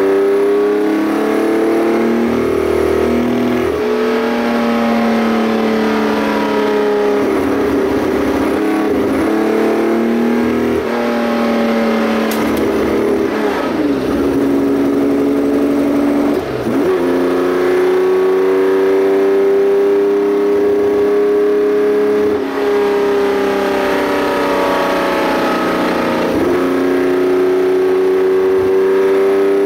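Porsche 910 race car's engine heard from inside the open cockpit, running at moderate revs at low speed. Its pitch rises and falls with the throttle, with several brief dips as the driver changes gear.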